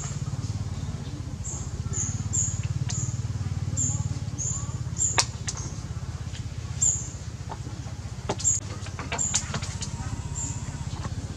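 A macaque crunching ice: a few sharp irregular cracks, a cluster of them about eight to nine seconds in. Under it, a steady low rumble and short high chirps repeating.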